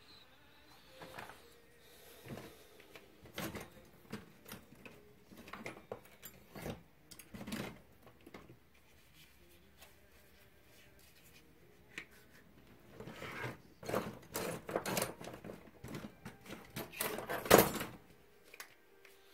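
Hand tools and small objects being handled on a workbench: scattered clicks, knocks and rustles, thicker and louder toward the end with one sharp knock near the close.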